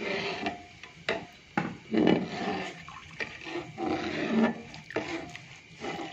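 Soaked rice being crumbled by hand and dropped into a large aluminium pot of hot milk: irregular splashing and rubbing, with a few sharp clicks.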